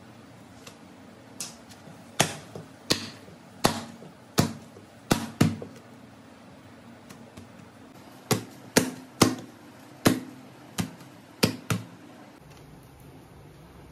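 Hands slapping and crushing a stack of freshly cooked Malabar parottas to loosen and fluff the flaky layers: two runs of about six sharp slaps, under a second apart, with a short pause between.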